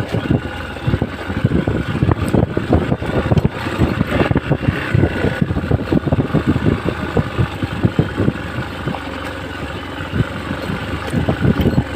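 Hero XPulse 200 motorcycle's single-cylinder engine running at low speed on a rough, bumpy off-road track, with frequent irregular knocks from the bike jolting over the ground.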